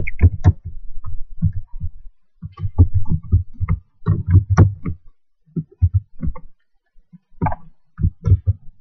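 Keystrokes on an ASUS K54 laptop keyboard: slow, irregular typing heard as low thumps and clicks in short clusters with brief pauses between words.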